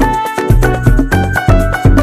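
Background music with a steady bass beat, about two beats a second, and a bright melody of plucked or struck notes.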